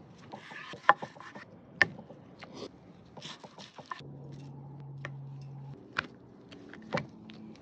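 A knife slicing through a raw picanha on an end-grain wooden cutting board: short scraping cuts and sharp knocks as the meat and blade strike the board, the loudest about 1, 2, 6 and 7 seconds in. A low steady hum sounds for about a second and a half from about 4 seconds in.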